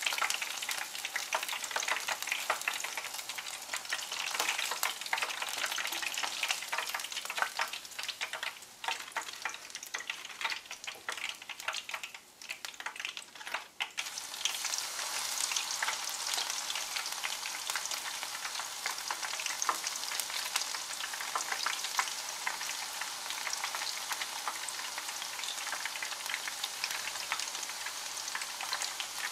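Battered black locust ('acacia') flower clusters deep-frying in hot oil: a crackling sizzle of many fine pops that thins out and gets quieter about a third of the way in. After a cut about halfway, a fuller, steady sizzle as battered crown daisy leaves fry in the same oil.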